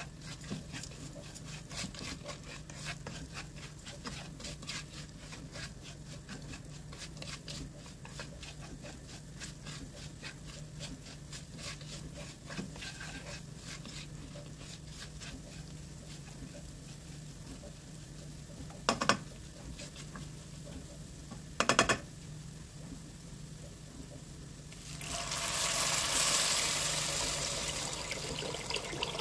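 A plastic spatula stirring and scraping tarhana powder through hot oil and mince in a nonstick pot, with light crackling sizzle and many small scraping clicks over a low steady hum. Two brief loud knocks come about three seconds apart, and near the end water is poured into the pot in a steady splashing stream.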